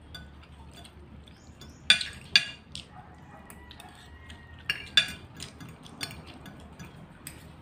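Metal spoon and fork clinking against a plate while eating: a string of sharp clinks, the loudest two close together about two seconds in and another about five seconds in.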